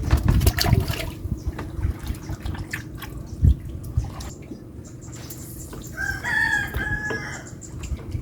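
A bird calling once near the end, a drawn-out pitched cry of a little over a second, with scattered clicks and splashes earlier on.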